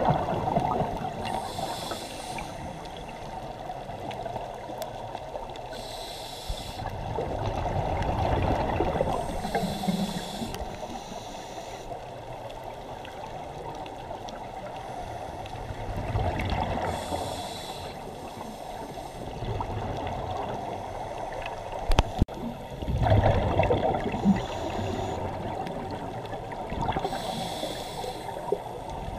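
Underwater sound of scuba breathing: exhaled regulator bubbles rushing and gurgling past in about six separate bursts a few seconds apart, over a steady low murky rush. There is one sharp click about two thirds of the way through.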